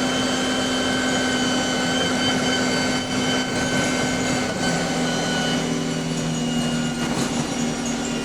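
Bus drivetrain heard on board while under way: engine running with a steady whine from the Voith automatic gearbox. The pitch of the whine shifts about halfway through as the drivetrain changes speed.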